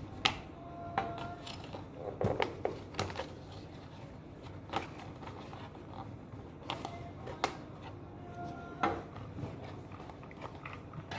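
Toy packaging being handled as a remote control is pulled out of its box: scattered clicks, crinkles and a few short squeaks.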